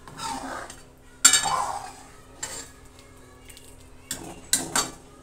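Steel ladle stirring a thin potato curry in a steel pan, with soft liquid swishing and the ladle clinking against the pan several times, the loudest clank about a second in.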